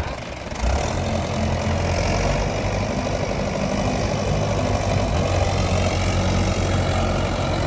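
Mahindra 585 DI XP Plus tractor's four-cylinder diesel engine working under heavy load as it hauls a fully loaded soil trolley up a climb. The engine gets louder about half a second in, then keeps a steady pulling note.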